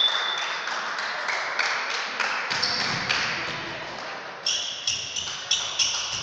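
Referee's whistle ending just under a second in, then scattered taps and knocks echoing in the sports hall. Near the end comes a quick regular run of sharp claps, about four or five a second.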